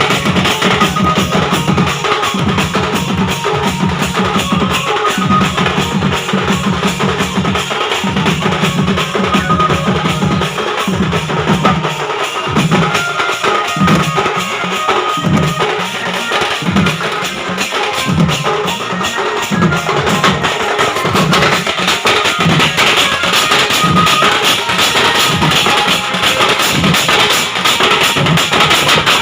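Loud band music driven by heavy drums. The low drum sound is held in long blocks at first, then breaks into quick separate strokes from about halfway through.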